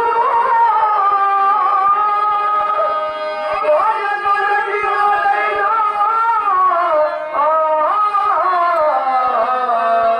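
A solo voice singing a slow stage song, holding long notes that slide smoothly between pitches.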